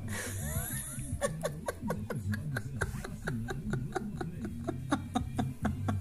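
A woman laughing in a long run of short, quick bursts, about four a second.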